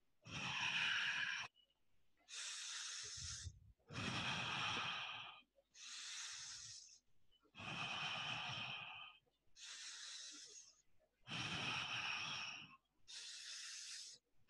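A man's slow, deliberate breathing in and out, paced as in yoga breathing while resting in a pose. There are about eight long breaths, each lasting over a second, with short pauses between them.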